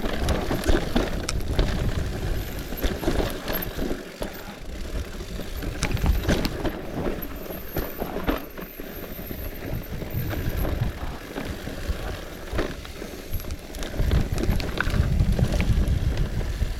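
Bicycle riding over a rough, muddy trail: a gusty rumble of wind on the microphone, with frequent knocks and rattles from the bike over bumps.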